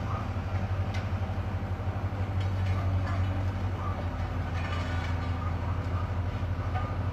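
Small tandem asphalt road roller's diesel engine running steadily with a low, pulsing hum, with a few faint clicks and scrapes over it.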